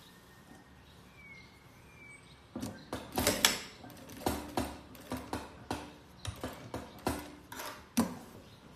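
Industrial sewing machine stitching denim in short stop-start bursts, about three a second, starting some two and a half seconds in.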